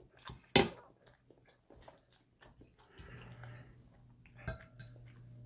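Fork and knife clicking and scraping on a plate as French toast is cut, with one sharp clink about half a second in, and soft chewing between. A low steady hum comes in about three seconds in.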